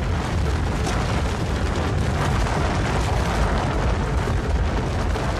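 Powder avalanche coming down: a steady, heavy low rumble of rushing snow.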